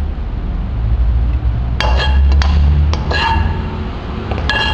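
A utensil clinking against dishware while a vegetable sauté is handled: several sharp clinks with a short ringing tone, about two seconds in and again near the end, over a steady low rumble.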